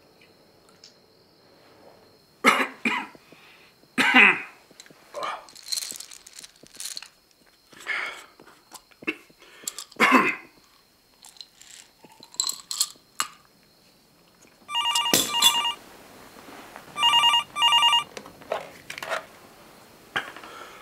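Landline telephone ringing about fifteen seconds in: one ring, then a double ring a couple of seconds later. Before it comes a string of short, irregular sounds, the loudest about two and a half and four seconds in.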